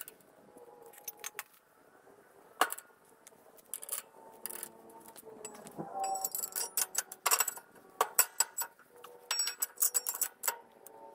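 Steel weight plates clinking and knocking against each other and the mower's front weight-kit hanger as they are hung in place. The sharp metallic knocks are scattered, with busy runs in the second half.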